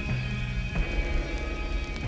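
Background music: held chords over a low pulse, with the chord changing twice.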